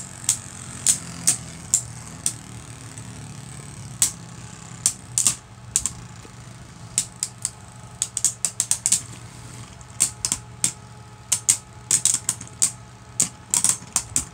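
Two Beyblade Burst tops, Cyclops C4 against Orichalcum, spinning down in a plastic stadium and clacking against each other in sharp, irregular hits, often several in quick succession.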